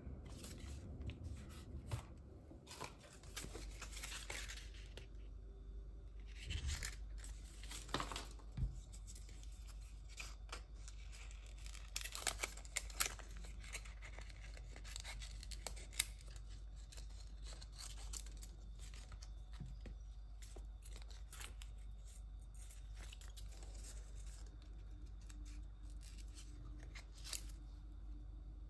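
Small scissors snipping through a strip of clear PET tape stickers, several cuts clustered around the middle, with rustling and crinkling of the plastic tape as it is handled between cuts.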